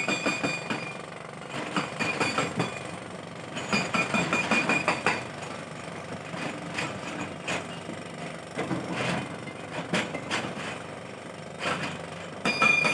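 Tata 210 excavator working: its engine runs under load with irregular metallic clanks and knocks.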